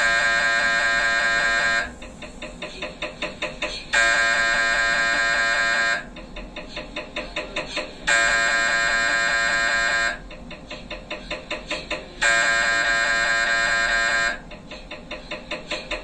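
MRI scanner's gradient coils running a diffusion-weighted (DWI) brain sequence: a loud continuous buzz for about two seconds, then about two seconds of softer rhythmic pulses, about four a second, that grow louder, the cycle repeating four times.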